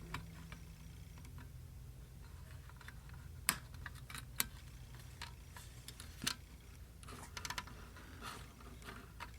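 Hook lock pick scraping and clicking against the metal inside an old lever lock under tension, as it probes for the lever. Scattered sharp metallic clicks, with a quick run of clicks near the end.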